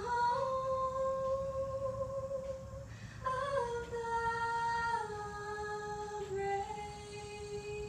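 A single voice singing a slow melody in long held notes, breaking off briefly about three seconds in, then resuming and stepping gradually lower.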